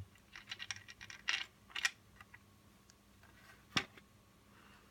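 Hoverboard's plastic shell scraping and clicking as it is fitted back over the battery and circuit board, a run of short rattly clicks in the first two seconds, then one sharp knock nearer the end.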